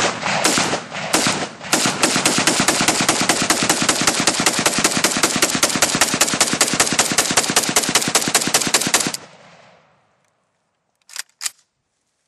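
Century Mini Draco 7.62×39 AK pistol with an AK-74-style muzzle brake firing a few spaced shots, then a fast, unbroken string of shots that stops abruptly about nine seconds in. Two sharp clicks come near the end.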